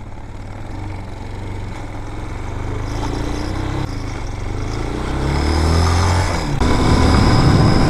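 Vitacci Raven 250 air-cooled single-cylinder dirt bike engine pulling away and accelerating, its note rising steadily and growing louder; from about two-thirds of the way through it turns louder and rougher.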